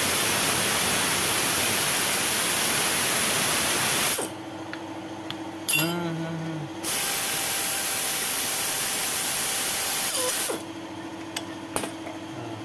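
Pneumatic tool spinning a coil spring compressor's threaded rod on a car strut, giving a loud steady hiss of air in two runs, the first stopping about four seconds in and the second lasting about three and a half seconds; a lower steady hum fills the gaps between.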